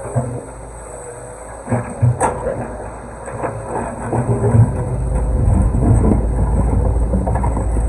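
Excavator demolishing a stone wall: the diesel engine runs under knocks and clatter of stones breaking and tumbling, sharpest about two seconds in. A louder low rumble builds from about five seconds in.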